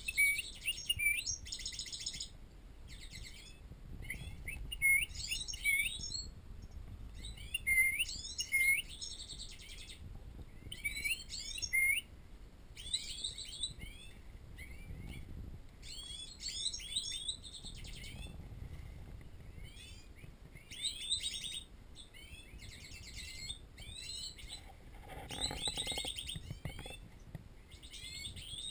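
European goldfinches singing: phrases of quick, twittering chirps that come and go every second or two.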